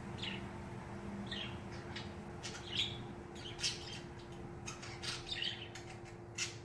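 Pet birds chirping in many short high calls, several sliding down in pitch, over a low steady hum.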